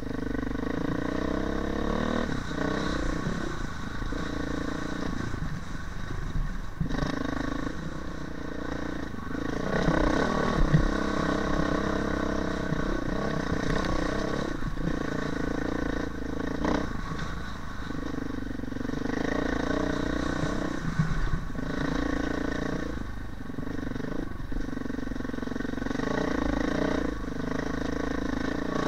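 Dirt bike engine running under way, its pitch rising and falling as the rider works the throttle on a rough trail, with a few knocks from the bike over bumps.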